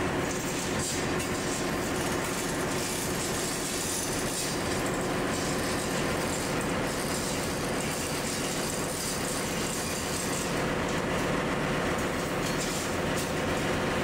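Steady ship's engine-room machinery noise: a constant mechanical drone from running machinery, with steady tones underneath and an even level.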